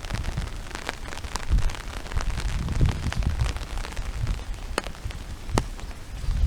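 Rain falling, with many scattered raindrop ticks close to the microphone, two of them sharper about five seconds in, over irregular low thumps.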